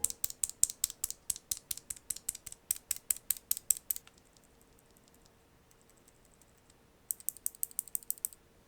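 Typing on a NuPhy Air60 low-profile mechanical keyboard with Gateron low-profile switches: a quick run of keystrokes lasting about four seconds, a pause, then a short burst of keystrokes near the end.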